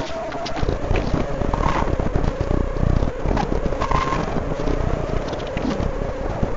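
Semi-automatic face-mask earloop welding machine running: a rapid, irregular mechanical clatter over a steady hum.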